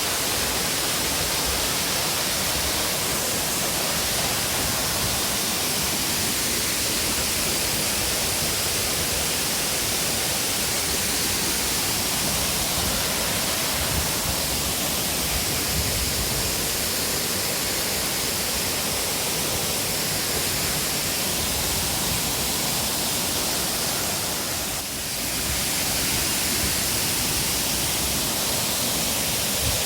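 Waterfall rushing: a steady, even noise of falling water, dipping briefly about 25 seconds in.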